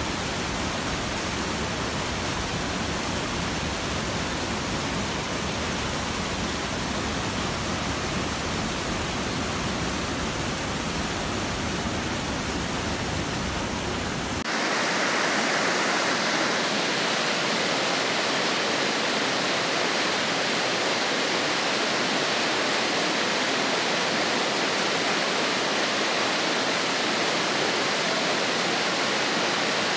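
Rushing water of a spring-fed river, a steady even rush. About halfway through it changes abruptly to a louder, brighter rush with less rumble, as of white water pouring over rocks in a cascade.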